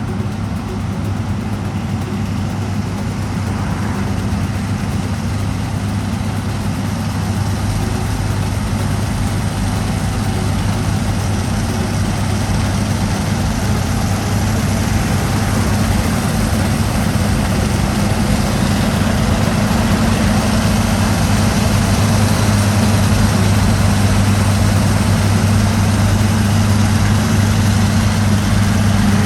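Heavy diesel engine of harvest machinery running steadily with a deep, even drone, slowly growing louder.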